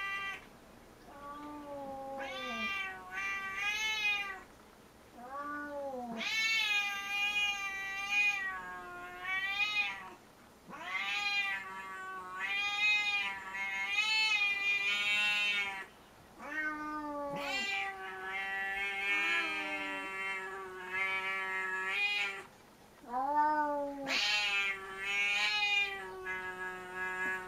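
An angry domestic cat yowling at another cat: a string of long, drawn-out calls that waver in pitch, each one to three seconds long with short pauses between. It is a warning at being disturbed.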